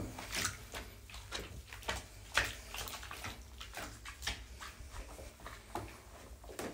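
A hand pressing and stirring a knitted angora kerchief down into a container of warm soapy water to soak it, making soft, irregular sloshes and small splashes.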